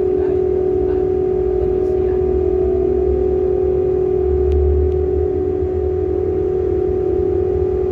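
Ship's deck crane machinery running as its grab bucket is hoisted out of the cargo hold: a loud, steady hum with a low rumble that swells briefly about halfway through.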